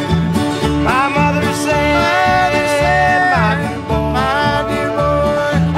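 Acoustic string band playing an instrumental break: fiddles carry long, sliding melody notes over upright bass, mandolin and guitar keeping a steady beat.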